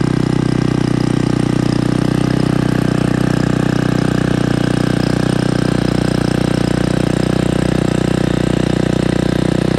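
Small gasoline engine of a TAZZ rotor tiller running steadily at an even speed.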